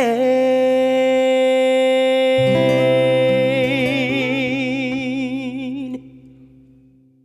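Male singer holding the song's final long high note over sustained instrumental backing chords. The note scoops up into pitch, holds steady, then widens into vibrato about halfway through and cuts off about six seconds in, while the backing rings out and fades away.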